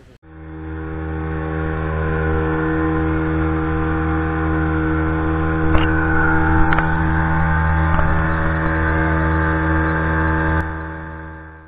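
Motorboat engine running steadily at cruising speed, with a couple of brief knocks about six and seven seconds in.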